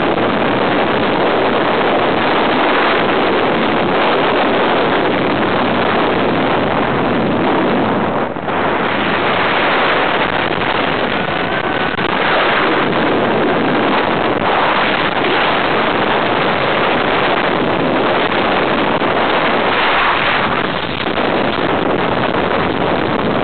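Loud, steady wind rushing over the microphone as a rider-held camera travels at speed on Goliath, the steel hypercoaster at Six Flags Magic Mountain, mixed with the train running along the track. There is a brief dip about eight seconds in.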